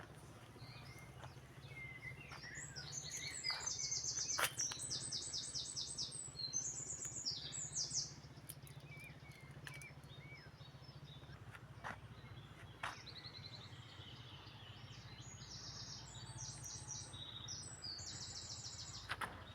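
Songbirds singing: two stretches of fast, high trilled phrases, one about three seconds in and one near the end, with scattered short chirps between, over a steady low hum.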